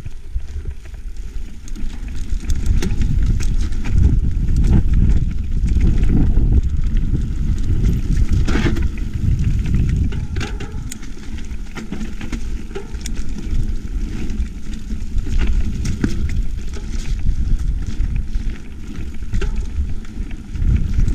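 Mountain bike riding fast over a rough gravel forest trail: a steady low rumble of tyres and wind on the microphone, broken by frequent clicks and clatters as the bike jolts over stones.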